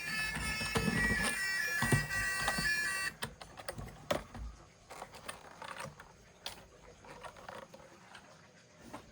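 A buzzy electronic tune of several steady held tones that cuts off abruptly about three seconds in, followed by scattered light clicks and taps.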